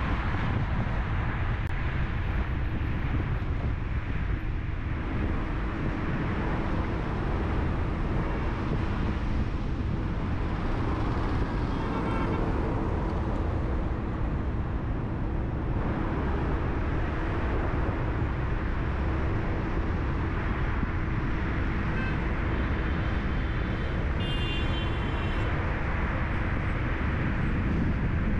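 Car driving through city traffic: a steady low rumble of engine and tyres on the road, with a constant engine hum.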